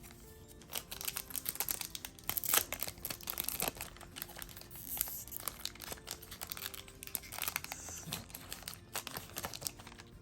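Foil booster-pack wrapper crinkling and tearing as the pack is opened and handled, in dense crackly rustles that run on for most of ten seconds.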